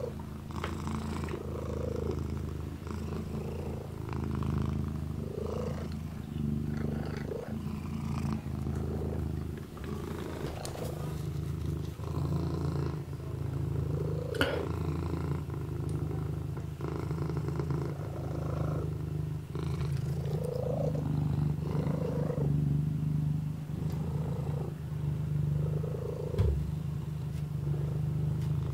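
Kitten purring steadily, rising and falling with each breath, with faint licking sounds as it grooms its paw. A couple of short soft knocks, one about halfway through and one near the end.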